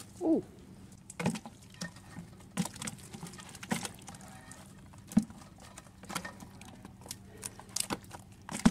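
Live snakehead and other freshly caught fish flopping in a plastic tub as a hand stirs through them: scattered wet slaps and clicks, one or two a second, the loudest about five seconds in and at the end. A brief falling squeak sounds just after the start.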